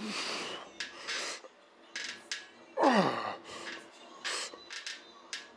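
A man breathing hard in quick, sharp exhalations while straining through the last set of chest-supported dumbbell rows, with one loud groan falling in pitch about three seconds in.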